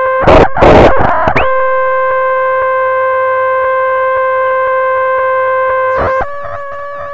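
Homemade stripboard modular synthesizer holding a steady, buzzy drone with many overtones, broken about a third of a second in by two loud bursts of noise lasting about a second. Around six seconds in it turns quieter, the drone steps slightly higher and warbling high tones come in.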